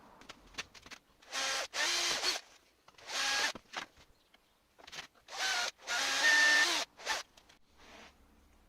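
Power drill running in three bursts, the last the longest, its motor pitch dipping and recovering as it bites into the work.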